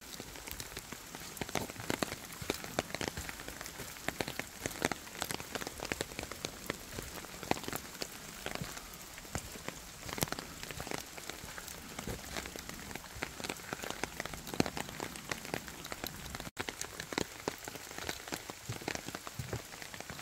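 Steady rain falling in a bamboo grove, a dense hiss full of separate drops landing close by. The sound cuts out for an instant about three quarters of the way through.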